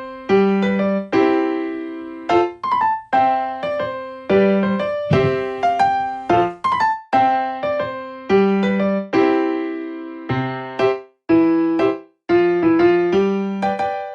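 Background music: a piano-like keyboard playing a melody of separate struck notes, each fading away after it is hit.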